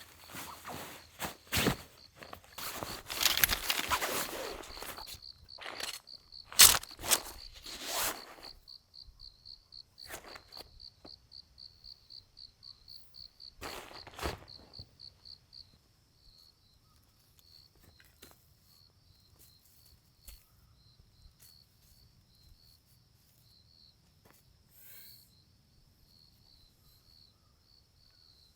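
Insects chirping in a high, rhythmic pulse that settles into a steady high trill over the second half. Over the first several seconds, louder rustling, footsteps and knocks of things being handled.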